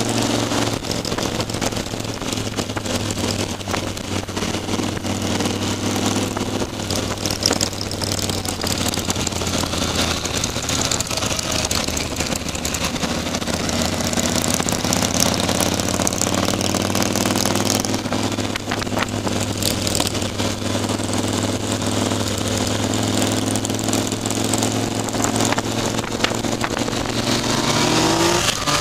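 Yamaha FZ-09's inline-three engine running at a steady road speed under constant wind rush, its pitch rising as it revs up near the end.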